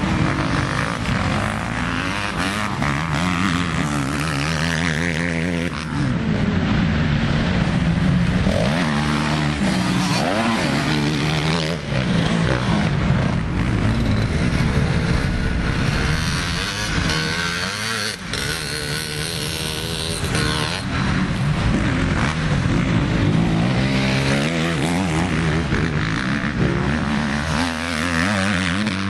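Motocross dirt bike engines revving hard, the pitch climbing and dropping again and again as the riders accelerate out of corners and shut off the throttle.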